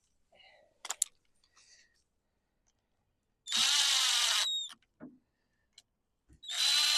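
Power drill running in two short bursts of about a second each, with a high whine that drops as the motor spins down at the end of each burst.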